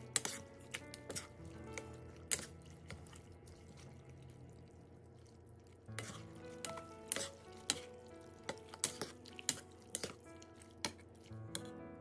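Metal spoon and chopsticks clinking against a ceramic bowl as noodle soup is stirred: irregular sharp clinks, pausing for a few seconds in the middle, over soft background music.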